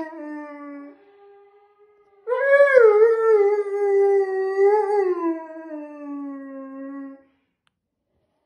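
A Samoyed howling: the end of one howl dies away in the first second, then after a short pause a second long howl begins about two seconds in, rising at first, then held and sliding slowly down in pitch until it stops about seven seconds in.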